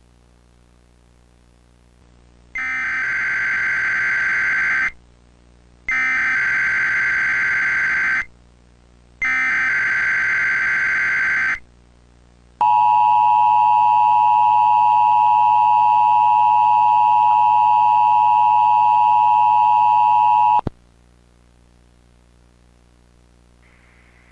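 Emergency Alert System alert tones. First come three bursts of SAME header data, each a couple of seconds long with a pause of about a second between them. Then comes the two-tone EAS attention signal, held steady for about eight seconds before it cuts off suddenly.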